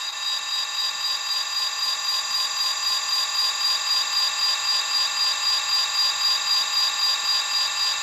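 Electronic alarm clock going off with a loud, high, steady tone that pulses about four times a second.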